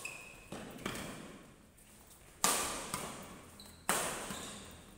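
Badminton rackets hitting a shuttlecock during a doubles rally: a string of sharp hits, each echoing and fading in a large hall. The two loudest come about two and a half and four seconds in.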